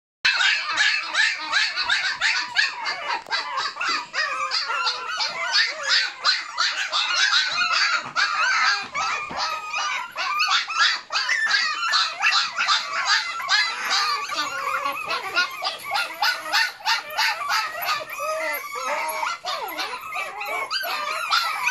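A litter of six-week-old Malshi (Maltese × Shih Tzu) puppies yipping and barking over one another without pause, in many overlapping high-pitched calls.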